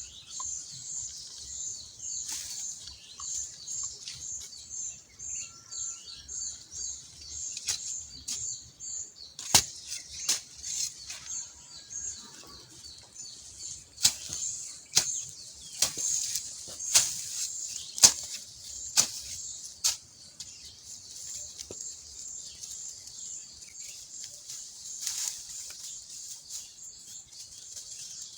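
Digging by hand: a tool strikes the soil in sharp blows about once a second, mostly from about a third of the way in to around two-thirds through. A steady high pulsing chirr of insects runs underneath.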